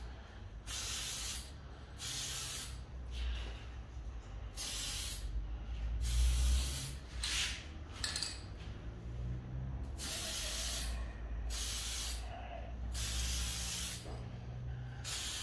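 Aerosol spray-paint can spraying in short bursts: about a dozen hisses, each under a second long, with brief pauses between them.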